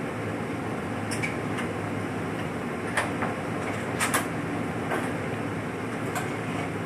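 Steady machine hum and hiss, with about seven light clicks scattered through it.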